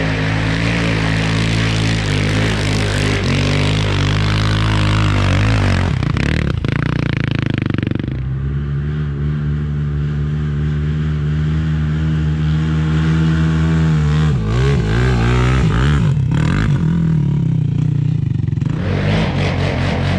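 Sport ATV engine running hard on a sand dune, the revs rising and falling. The engine holds steady high revs for several seconds in the middle, then dips and climbs again.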